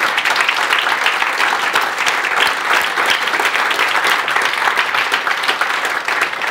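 An audience applauding: many hands clapping together in a steady run.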